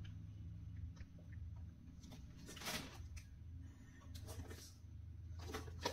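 Faint handling noise as a sneaker is turned over in the hand: three soft rustles in the second half, over a low steady hum.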